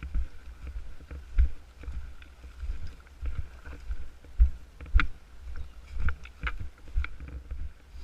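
Irregular low thumps and knocks, about one or two a second, with a few sharper clicks, from a camera worn by an airsoft player on the move.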